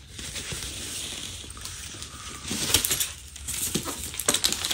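Cardboard shipping box being handled and tipped up on a wooden table: a steady rustling scrape, then several light knocks and taps in the second half.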